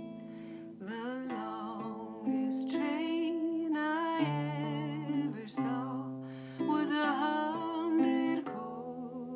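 A woman singing a slow folk melody with a wavering, held voice, accompanied by chords on a nylon-string classical guitar. The voice comes in about a second in and drops out near the end, leaving the guitar alone.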